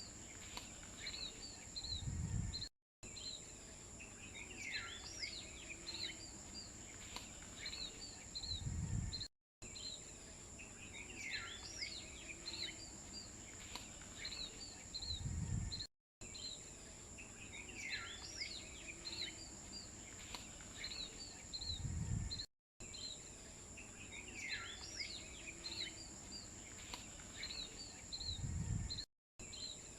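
Birds chirping over a steady high insect drone, as a short nature-ambience loop of about six and a half seconds that repeats, with a low rumble and then a brief cut to silence at each repeat.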